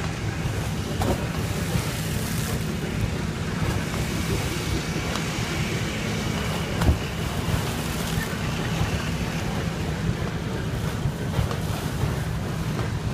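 Exhaust of the Windy City stationary engine discharging through an underground exhaust pit: a steady, low, rapidly pulsing rumble, with one louder pop about seven seconds in.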